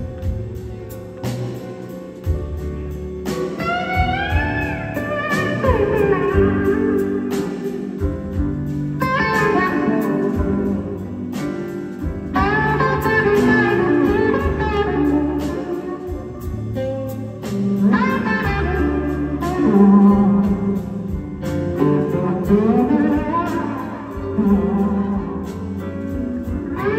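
A live electric blues band plays a slow blues. A lead electric guitar, played with a slide, gliding up and down between notes, sings over bass, drums and keyboard.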